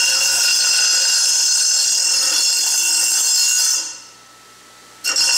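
Bench grinder running with a steady high whine and hiss as the burred ends of galvanized steel conduit are ground. About four seconds in the sound falls away for roughly a second, then comes back sharply.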